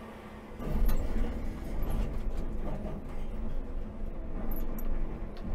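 Cat 395 hydraulic excavator digging its bucket into a pile of broken rock. About a second in, a sudden loud rumble of rocks scraping and shifting against the bucket, with scattered cracks, over the C18 diesel engine running under load.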